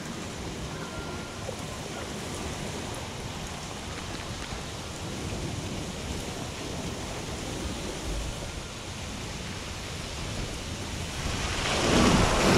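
Steady rushing noise of wind and spraying water on an action camera's microphone, growing louder near the end as water sprays over the camera.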